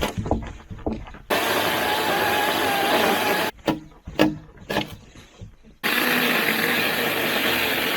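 Small Ryobi chainsaw cutting through a hard log in two long bursts, its motor note wavering under load, with short pauses between them holding a few knocks and clicks.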